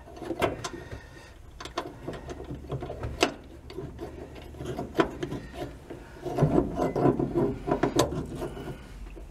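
Hand tools and metal hardware clicking and clinking as nuts and bolts are fitted by hand to the parking brake pedal's mounting bracket, with a denser stretch of rattling about six to eight seconds in.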